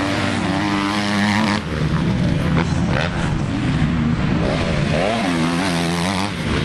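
Motocross dirt bike engines revving hard, the pitch climbing and dropping as the throttle is worked through the jumps, with several quick rises and falls near the end.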